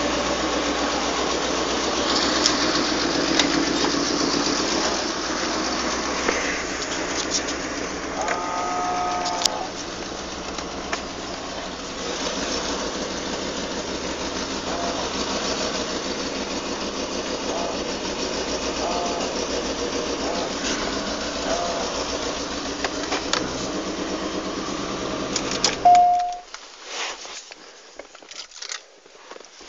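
1990 Cadillac Sedan DeVille's 4.5-litre V8 running steadily at idle. Near the end there is a sharp knock, and the engine sound then cuts out abruptly.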